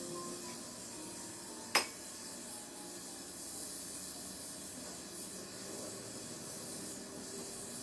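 Gas brazing torch hissing steadily as the steel seat lug of a chromoly bicycle frame is brazed, with one sharp metallic click a little under two seconds in.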